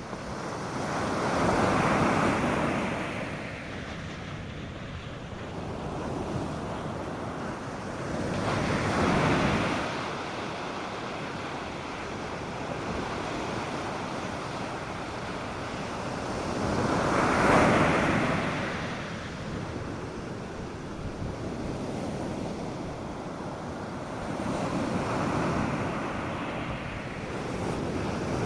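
North Sea surf breaking and washing up a sandy beach: four waves swell and fade about every eight seconds over a steady wash of water, the third the loudest. A light wind runs under it.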